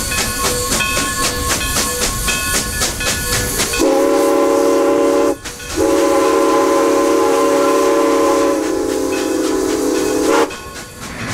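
Steam locomotive running with a quick, even chuffing beat, then its chime whistle sounding two blasts of several notes together: a short one and then a long held one.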